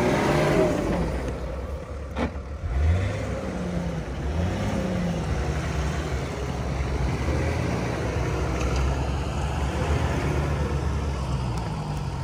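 Off-road 4x4's engine revving up and down over and over, with a sharp knock about two seconds in.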